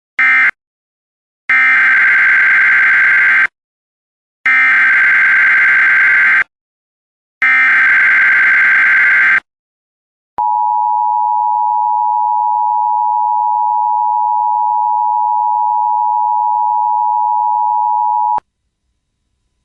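Emergency Alert System signalling: one short digital data burst, then three warbling two-second SAME header bursts a second apart marking the start of a new alert. These are followed by the steady two-tone EAS attention signal, held for about eight seconds before cutting off.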